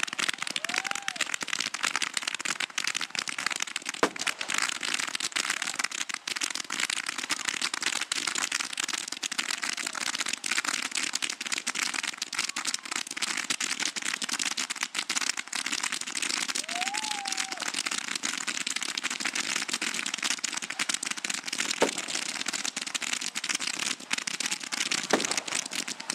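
Fireworks crackling densely and without a break, a rapid rattle of many small reports. A few sharper bangs stand out, about four seconds in and twice near the end.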